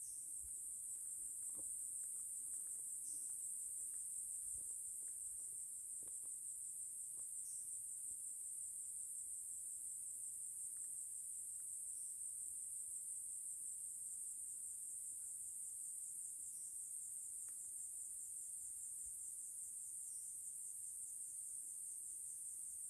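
A high, shrill, steady chorus of insects, a dense trill that never lets up. A short faint note recurs every four or five seconds, and there are a few soft knocks.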